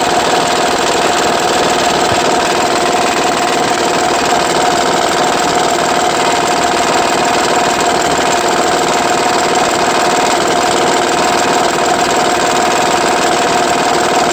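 2009 Honda Pilot's 3.5-litre V6 engine idling with a steady noise and a constant tone over it. The owner blames the noise on a loose, wobbling timing belt tensioner.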